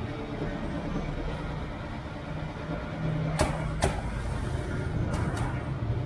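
Steady rumble of road traffic with engine hum, and two pairs of short sharp clicks in the second half.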